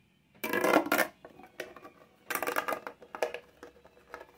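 Plastic fidget pop tube being stretched and squeezed, its ridged sections crinkling and clicking in several short bursts.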